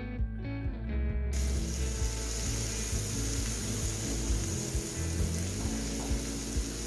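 Food sizzling steadily in a hot pan, starting about a second in, over background music with a low bass line.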